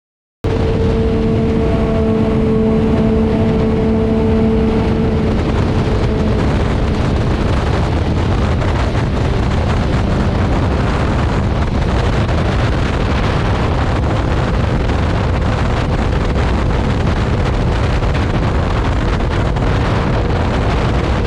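Heavy wind rushing over a helmet-free action-camera microphone on a motorcycle at speed, with the Yamaha Tracer 900's inline-three engine note as a steady hum. The hum stands out for the first few seconds and then fades under the wind.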